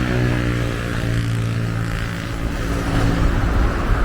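Tour bus engine running with a steady hum whose pitch eases slightly lower, over road noise.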